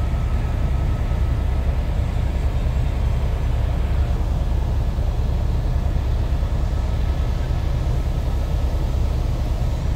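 Helicopter in flight heard from inside the cabin: a steady, loud low rumble of rotor and engine with a faint steady whine above it.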